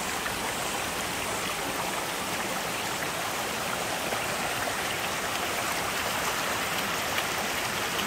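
Shallow mountain stream running steadily over rocks.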